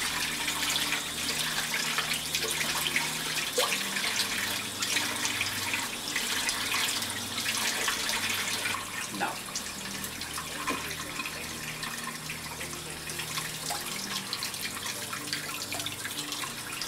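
Kitchen faucet running steadily into a sink, the stream splashing in the basin. The splashing turns softer about halfway through.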